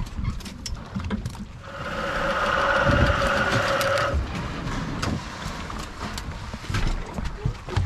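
Electric jigging machine's motor whining steadily for about two and a half seconds, starting about a second and a half in, over scattered clicks and knocks of hooks, gear and fish on the deck and a low rumble.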